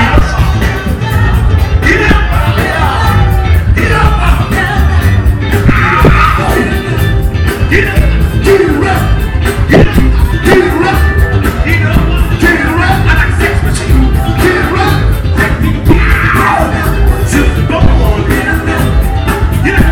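Live funk band playing loudly over a steady beat, with a singer's voice over the band.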